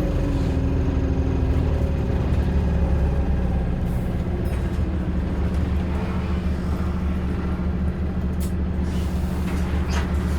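Low, steady droning inside a moving bus. A whine slides down in pitch over the first second or two, and a few light clicks come near the end.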